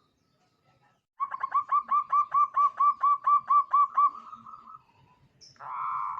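Zebra dove (perkutut) singing: a fast run of about fourteen short, clipped cooing notes, roughly four or five a second, trailing off. Near the end a louder, buzzier call begins.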